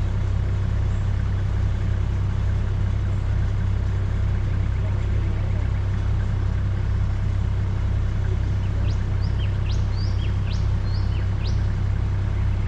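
Vehicle engine idling with a steady low hum. Near the end a bird chirps a quick run of short, high notes.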